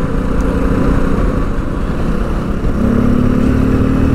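Motorcycle engine running under way; nearly three seconds in the engine note grows louder and starts to climb slowly as the bike accelerates.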